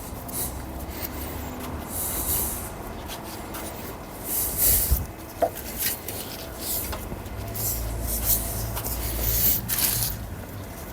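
Workshop handling noises at a manual gearbox: scattered light metal clinks and brief scraping or rubbing as tools and parts are moved about.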